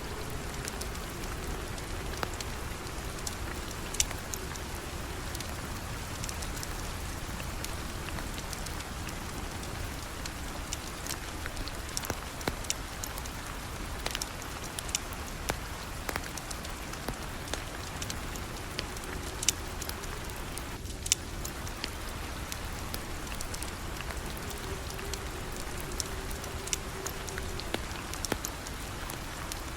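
Steady rain falling, an even hiss with scattered sharp ticks and pops throughout.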